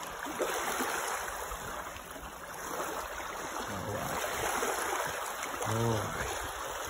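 Shallow lake water lapping on a stony shore and sloshing around a pike held in the margin for release. A man's voice sounds briefly about six seconds in.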